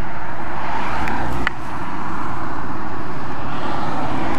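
Road traffic noise, steady and loud, with one sharp knock about a second and a half in.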